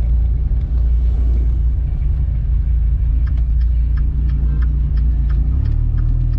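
Dodge Viper's V10 running steadily while driving, heard from inside the cabin as a low, even engine and exhaust note. The note shifts near the end, as with a change in engine speed.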